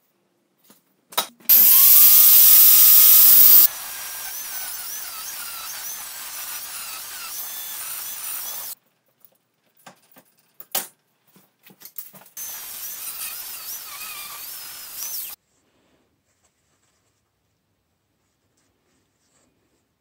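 Handheld power tool running in bursts while working steel. It starts very loud for about two seconds with a rising whine, then runs much quieter with a wavering whine for about five seconds. A few clicks and taps follow, then about three more seconds of running.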